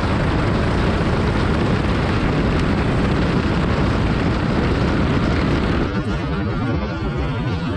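Go-kart running flat out on a dirt track, heard from an onboard camera: engine noise buried under heavy wind rush on the microphone. About six seconds in the rush drops away and the sound thins out.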